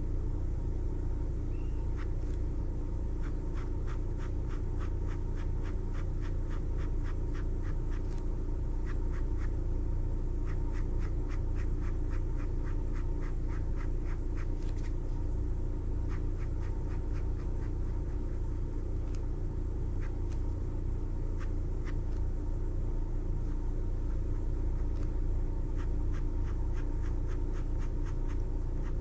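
Ink pen scratching on sketchbook paper in runs of quick hatching strokes, several a second, over a steady low rumble and hum.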